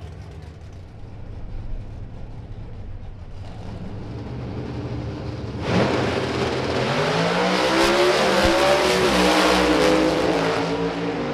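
Pro Stock drag-racing cars' engines running low at the starting line, then a sudden loud launch about six seconds in, the engine pitch climbing as the cars accelerate down the strip before the sound eases off near the end.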